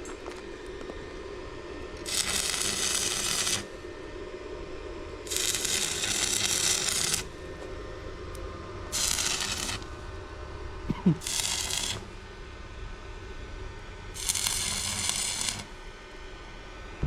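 Electric arc welding: five short bursts of crackling hiss, each one to two seconds long, over a steady low hum. It sounds like tack welds on steel angle brackets. There is a single metal knock about eleven seconds in.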